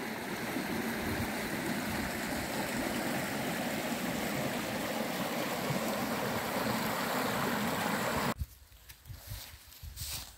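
Shallow, partly iced stream rushing over rocks and small rapids, a steady dense water noise. It cuts off abruptly about eight seconds in, leaving only faint scattered sounds.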